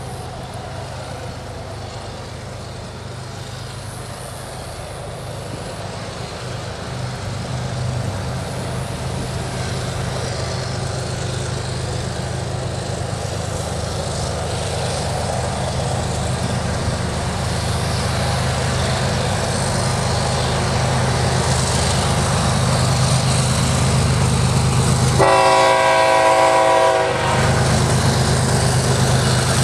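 Kansas City Southern freight train approaching: the diesel locomotive's engine drones steadily and grows louder as the train nears. Near the end the locomotive sounds one horn blast of about two seconds.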